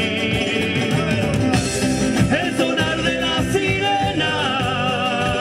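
Live song: a man singing over a strummed acoustic guitar, with bass guitar backing.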